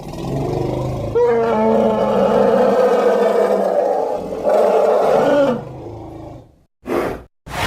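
Sound-designed triceratops roar: a low rumble swelling about a second in into a long, loud roar that slowly falls in pitch, with a second swell later, then fading out. Near the end come two short, breathy bursts.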